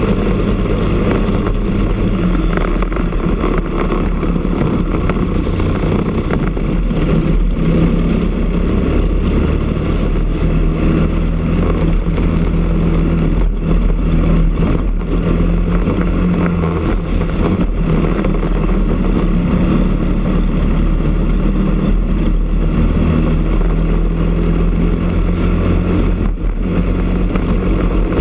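Briggs & Stratton LO206 single-cylinder four-stroke kart engine running hard at racing speed, heard on board the kart. Its pitch eases off around the middle as the kart slows for a corner, then builds again.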